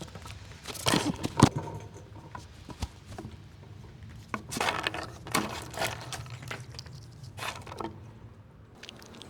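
Squirrels cracking and chewing nuts: irregular crunches and clicks in clusters, loudest about a second in and again around the middle.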